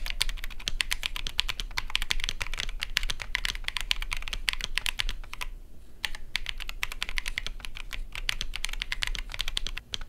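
Typing sound test on a Keychron Q1 Pro mechanical keyboard with its stock Keychron banana (yellow) switches and KSA-profile keycaps: a fast, steady run of keystroke clacks, with a short pause about halfway through.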